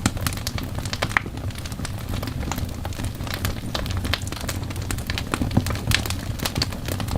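Fireplace crackling: irregular sharp pops and snaps over a steady low rumble of burning.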